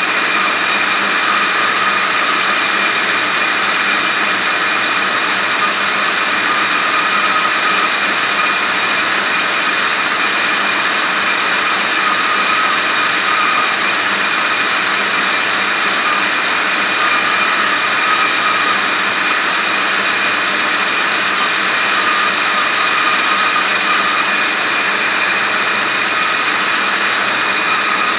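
Ford 4.6 single-cam V8 running, with a steady high-pitched whine/whistle from the front of the engine at the serpentine belt and pulleys. The noise comes only on a cold start below freezing.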